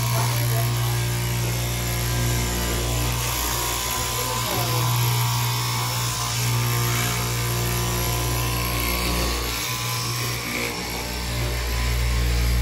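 Electric straight-knife fabric cutting machine running, its upright blade cutting through a tall stack of layered fabric, with a steady motor hum underneath; the low hum dips briefly near the end.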